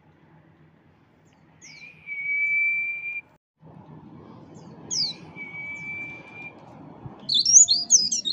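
Songbird singing: twice a quick falling note followed by a long, steady whistle, then from about seven seconds in a fast, high, chattering warble.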